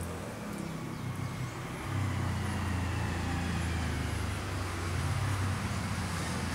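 Low, steady hum of an engine running, getting louder about two seconds in.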